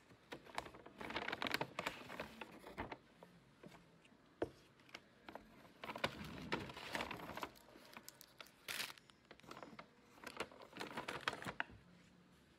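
Brown paper takeaway bag and paper food wrapper crinkling and rustling in several bursts as they are handled, with a few light knocks on a table.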